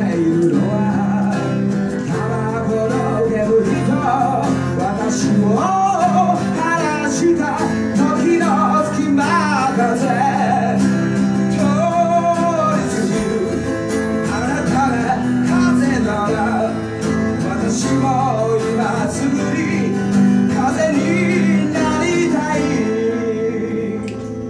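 Live acoustic band music: acoustic guitars strumming chords with a male lead voice singing the melody over them.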